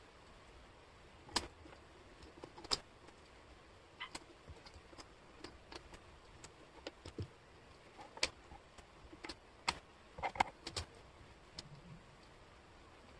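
Wooden jigsaw puzzle pieces clicking and clacking against each other and the table as they are picked up, slid and set down: irregular sharp taps, with a cluster of louder clicks about ten seconds in.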